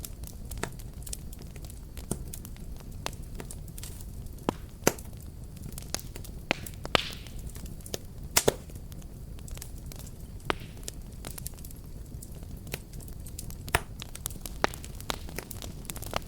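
Fireplace fire burning with a steady low rumble of flames, crackling and popping in sharp, irregular snaps. There is a short hiss about seven seconds in.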